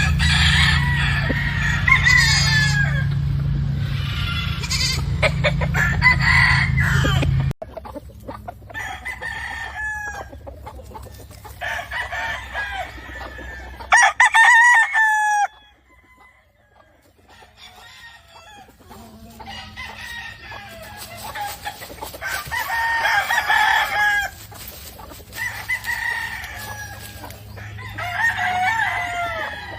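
Chickens: roosters crowing and hens clucking, with calls coming one after another. A steady low hum sits under the first several seconds and cuts off suddenly.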